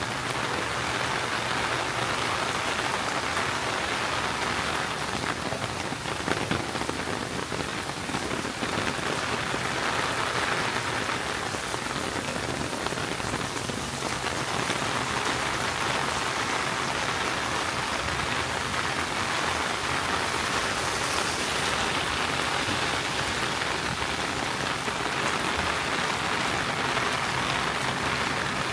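Steady rain falling, an even wash of noise, with one faint short knock about six seconds in.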